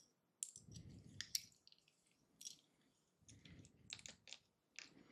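Faint small clicks and soft rustling of LEGO minifigure pieces being handled in the fingers, in two short spells.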